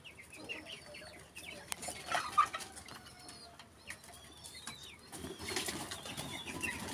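Birds chirping: many short, high, curving calls repeated through the clip, with louder rustling bursts about two seconds in and again after five seconds.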